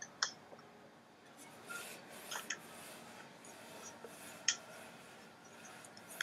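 Quiet handling noises: soft rubbing and rustling with a few small clicks, the sharpest one about four and a half seconds in.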